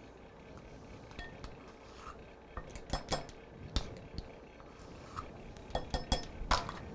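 Metal measuring spoons and utensils clinking and tapping while dry ingredients are measured out: a string of light clicks, a few of them ringing briefly, coming more often in the second half.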